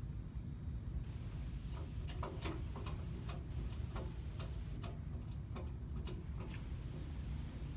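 A run of sharp, irregular clicks or taps, about a dozen over some five seconds, over a steady low hum.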